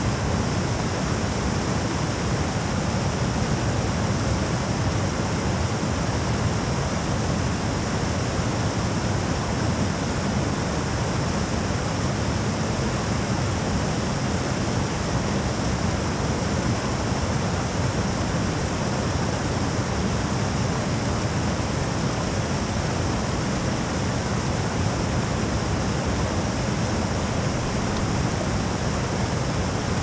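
Small mountain-creek waterfall heard up close: water rushing and splashing over rocks in a steady, unbroken rush.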